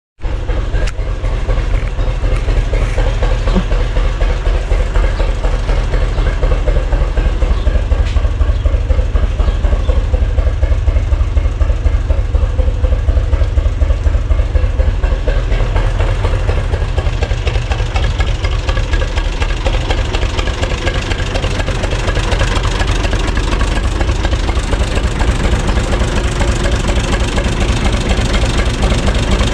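UTB 445 tractor's diesel engine idling steadily, a fast even low throb.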